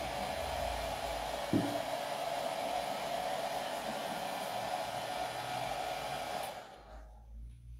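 A hand-held hair dryer runs steadily, blowing on a freshly painted tin can to dry the paint. It is switched off about six and a half seconds in.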